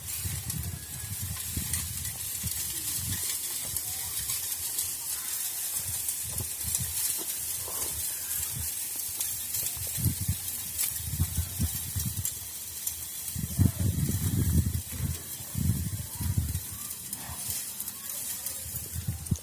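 Sand sieving machine: a steady hiss of sand running through the screen, with irregular low thumps that are strongest about two-thirds of the way through.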